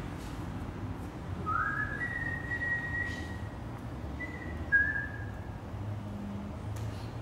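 A person whistling a short phrase: a note sliding up into a long held tone, then a shorter note that steps down.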